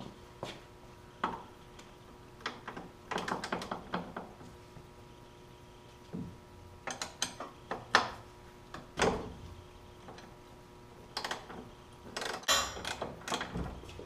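Hand tools clinking and knocking on the metal of a snowmobile's rear suspension as bolts are loosened: irregular sharp knocks and a few short runs of rapid clicks.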